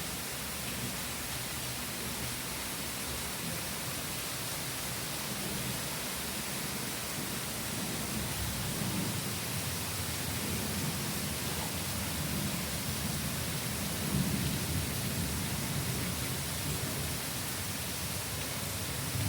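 Steady rain falling, an even hiss, with low rumbling that comes and goes and grows stronger in the second half.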